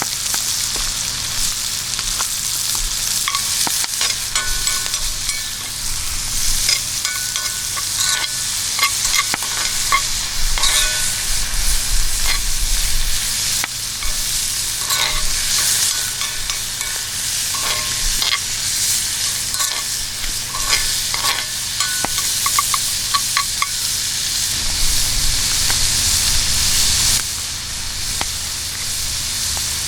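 Food frying in hot oil in a pan, a steady crackling sizzle, with frequent clicks and taps of a utensil stirring and turning the food against the pan. The sizzle eases near the end.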